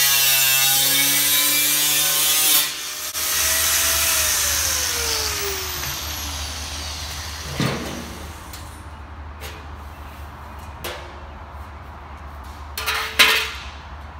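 Angle grinder with a flat cut-off wheel cutting through the steel wall of a 55-gallon drum, a brief break about two and a half seconds in, then cutting again before the motor spins down with a falling whine. After that, a few short knocks as the drum is handled, the loudest near the end.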